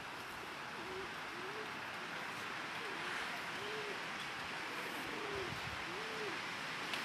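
Pigeons or doves cooing: a run of short, soft rising-and-falling coos, about one a second, over a steady hiss of outdoor background.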